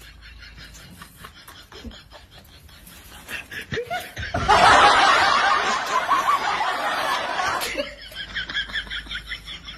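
Laughter sound effect laid over the picture: quick repeated snickers, then a loud burst of laughing about four and a half seconds in that lasts around three seconds, then snickering again.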